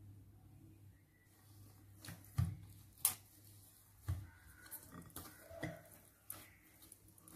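Hands kneading and pressing oiled dough in a glass bowl: a series of soft thumps and taps of dough and knuckles against the glass, the two sharpest a little over two and three seconds in.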